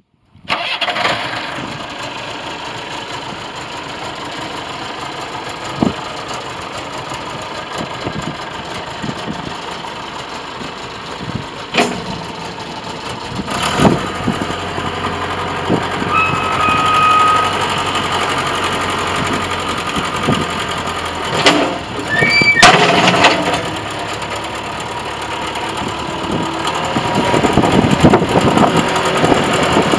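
Caterpillar 416 backhoe loader's diesel engine running steadily, with a few sharp clanks and a short high whine about halfway through. It gets louder near the end.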